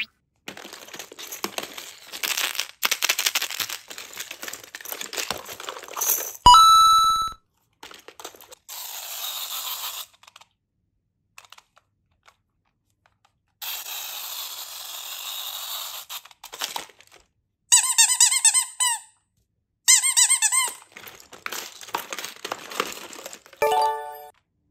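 Squishy rubber toys being handled and squeezed, heard as passages of rustling hiss broken by silences, with short added toy sound effects: a brief pitched tone about six seconds in and two quick bursts of squeaks near the end.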